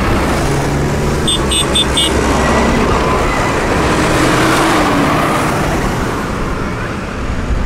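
Diesel engines of farm tractors in a convoy running and passing close by, loud and steady, easing off after about six seconds as the nearest tractor goes past. About a second in, four quick high-pitched tones sound in a row.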